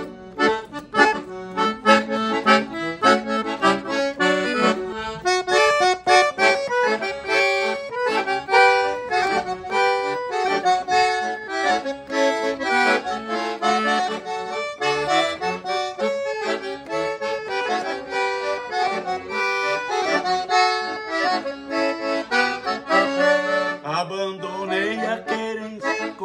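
Piano accordion playing an instrumental introduction to a traditional gaúcho song.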